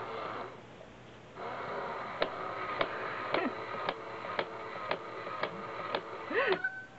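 Itazura Bank cat coin bank's motor running, triggered by a cat pressing its coin plate: a steady whir with a click about twice a second, ending with a short meow.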